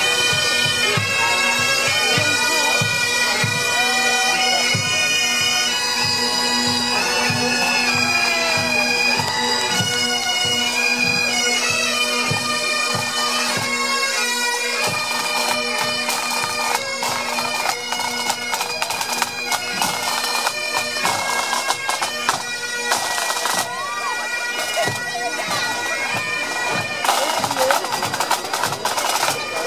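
Pipe band marching and playing: massed Highland bagpipes sound a tune over their steady drone, with a regular bass drum beat that stops about halfway through.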